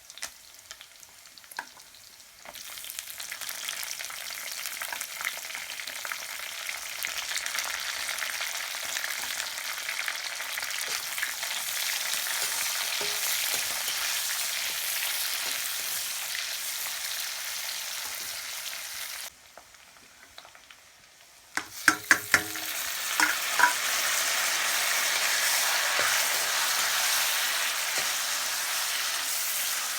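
Pork sizzling as it fries in a pan. The sizzle drops away for a couple of seconds about two-thirds of the way through, then returns with a few sharp metal clanks against the pan.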